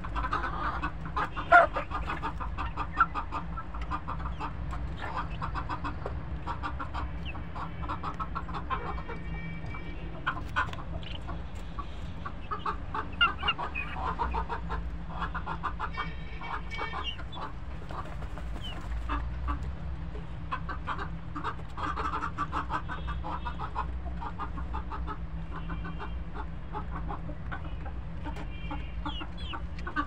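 A flock of domestic hens and a rooster clucking and calling while they eat, with quick taps of beaks pecking feed off a metal tray, a few of them sharper knocks. A steady low rumble runs underneath.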